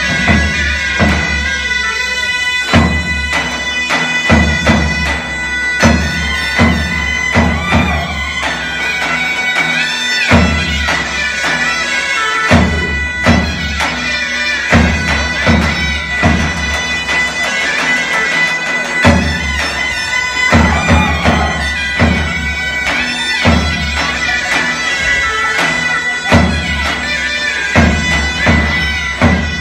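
Zurnas playing a zeybek tune, a dem zurna holding a steady drone under the lead zurna's melody. A davul beats heavy, unevenly spaced strokes under them in the slow zeybek rhythm.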